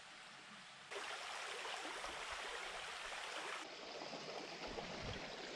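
Small creek running and babbling over stones in a shallow riffle, an even rush of water that starts abruptly about a second in.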